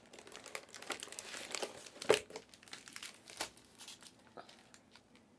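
Scattered small clicks and a light crinkling rustle from objects being handled at a desk, with one sharper knock about two seconds in.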